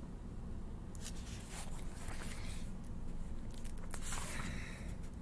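Soft rustling and light clicks of a paperback book being handled and lowered, over a steady low room hum.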